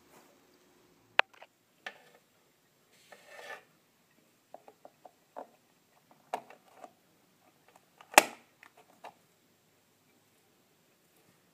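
Plastic plug clicking and scraping against a wall socket as it is worked in by hand, the prongs not going in easily. Scattered clicks and short scrapes, with a longer rub about three seconds in and the loudest sharp click about eight seconds in.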